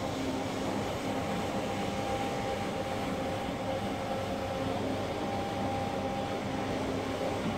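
Single-disc rotary carpet shampooing machine running, its motor spinning the pad as it scrubs shampoo into the carpet: a steady hum with a few held tones.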